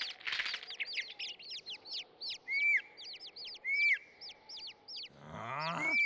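Cartoon sound effect of a flock of small birds chirping: many short, quick chirps with a few longer arched calls among them. A short burst of noise comes at the very start, and a sliding, rising sound near the end.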